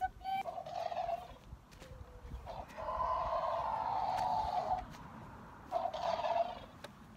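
Three dinosaur roars: a short one at the start, a long rough one about two and a half seconds in that is the loudest, and a brief one near the end.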